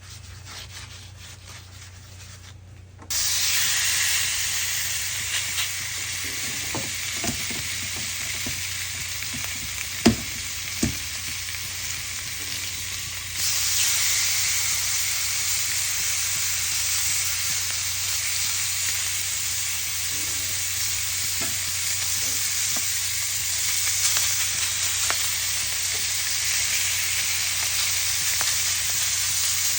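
Food sizzling on a hot grill, starting suddenly about three seconds in and getting louder again about thirteen seconds in, with a couple of sharp clicks near the middle.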